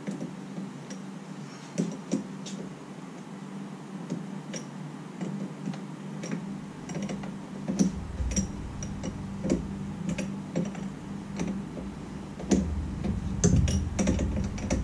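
Scattered small plastic clicks and taps as hands work the fuses and relays in a Jeep Wrangler TJ's under-hood power distribution box, over a steady low hum.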